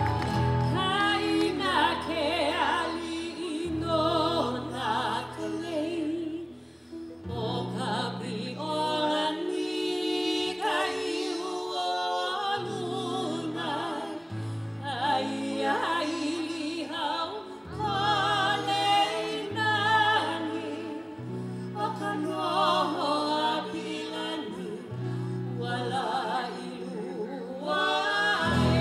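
A woman singing live into a microphone with a wide vibrato, over a backing that holds steady low notes changing every few seconds: accompaniment music for a hula dance.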